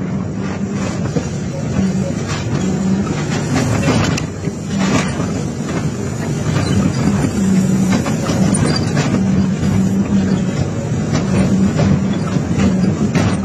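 Excavator's diesel engine running steadily under load while its hydraulic shear attachment cuts scrap sheet metal and steel framing, with irregular sharp metal clanks and cracks over the engine drone.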